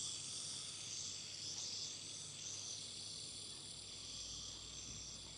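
Fidget spinner spinning on its bearing: a faint, steady, high whir that slowly dies away.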